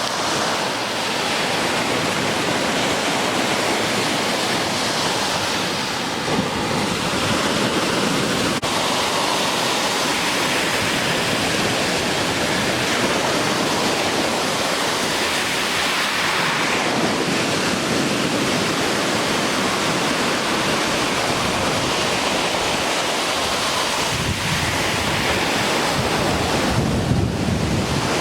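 Ocean surf washing and breaking continuously, a steady roar of waves, with wind buffeting the microphone at times.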